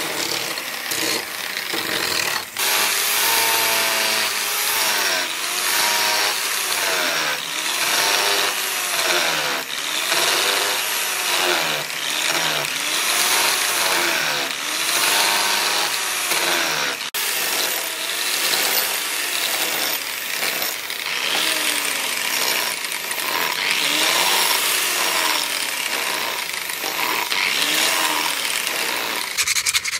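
Electric power tool running under changing load: its motor pitch dips and recovers in repeated swells about once a second as the work is pressed against it and eased off.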